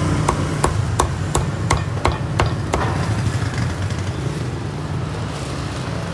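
Cleaver chopping roast pork on a thick wooden chopping block, about three sharp strokes a second, thinning out after about three seconds, over a steady low hum.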